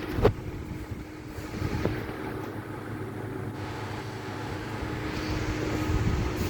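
A steady machine hum with a sharp click about a quarter second in and a fainter click near two seconds.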